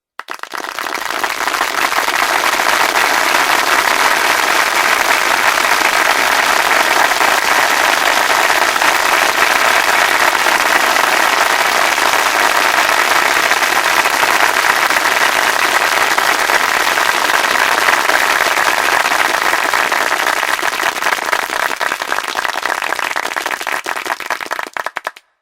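Sustained applause from a crowd: a dense, even patter of many hands clapping that swells in over the first couple of seconds and thins out near the end before stopping.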